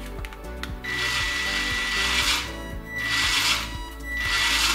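Toy 1:16 RC off-road pickup's drive motor and gearbox spinning the raised wheels at full throttle with a whine, running in two bursts of about a second and a half and cutting out in between. The car shuts off cyclically even with no load on the wheels, a fault the repairer suspects lies in the drive motor.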